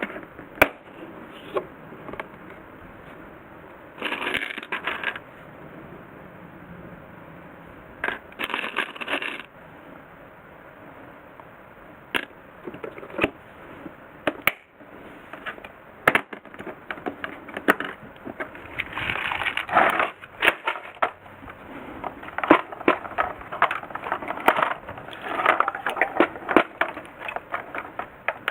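Hard objects being handled: a string of irregular clicks and knocks, with several short bursts of rattling. No drill motor is running.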